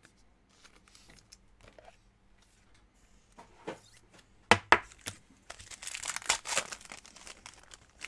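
Foil wrapper of a Donruss Optic football card pack being torn open and crinkled: a few sharp clicks about halfway through, then a burst of crackling tearing near the end.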